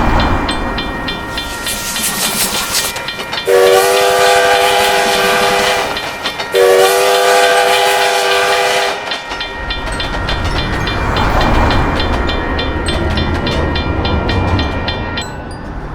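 Train horn sounding two long blasts of a chord of several notes, about three and a half seconds in and again about a second and a half later, each lasting over two seconds. Under it, a passing train rumbles with a fast, regular high ticking.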